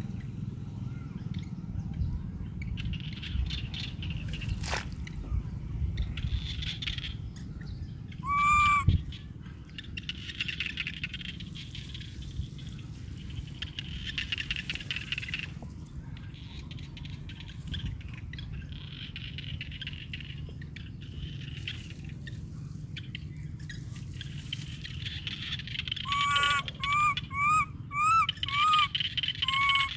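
Baby monkey calling with high, pitched coos: one clear call about eight seconds in, then a quick run of about seven short calls near the end, over a steady low rumble.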